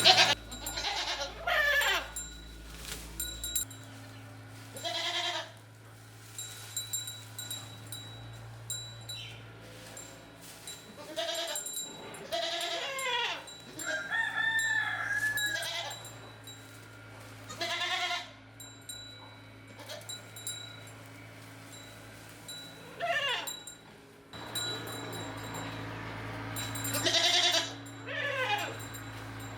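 Goats bleating: repeated separate calls a few seconds apart.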